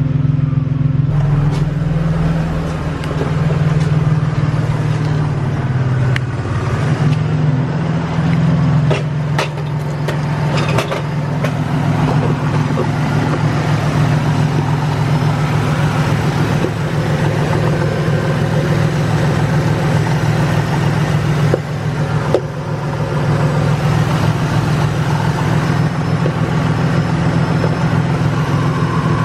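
Toyota Tacoma engine idling with a rapid, even ticking from the accessory belt drive, with a few sharper clicks about a third of the way in. The ticking and light knocking come from a worn idler pulley bearing.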